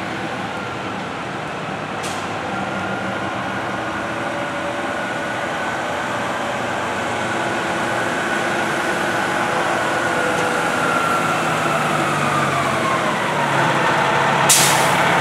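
An ambulance and a Spartan fire engine approach and pull up with their engines running, the engine noise growing steadily louder. A faint steady whine drops in pitch near the end. A short, sharp hiss of air, like an air brake, comes just before the end.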